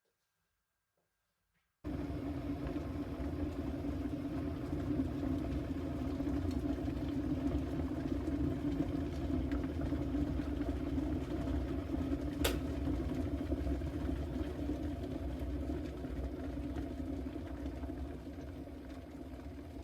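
A steady mechanical hum, like a household appliance running, starts abruptly about two seconds in. A single sharp click comes about halfway through.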